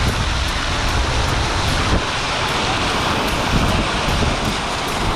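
A van driving through deep flood water on the road: a steady rush of water spraying and washing against the vehicle over the running engine.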